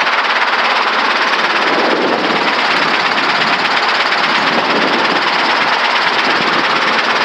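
Helicopter engine and rotor noise heard through the cockpit intercom: a loud, steady rush during ground taxi.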